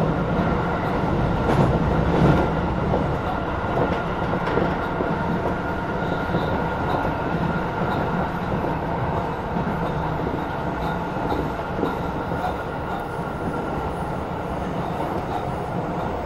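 Tokyo Metro 16000 series electric train running on the rails, heard from the cab: a steady rumble of wheels on track with a faint high steady hum, easing a little quieter toward the end.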